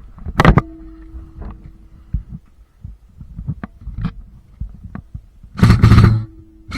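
Low thuds and rustling of movement close to the microphone, with a steady hum, a few sharp clicks, and a loud rush of noise near the end.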